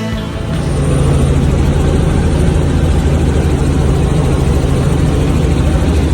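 Helicopter in flight: a steady, loud rotor and engine drone with a fast flutter and a faint high whine above it.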